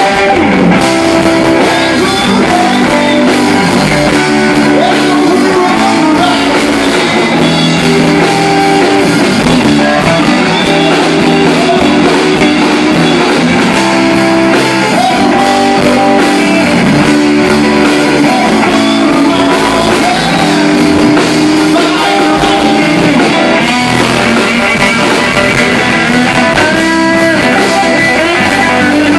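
A live rock band playing loud and steady: electric guitar over bass guitar and drum kit.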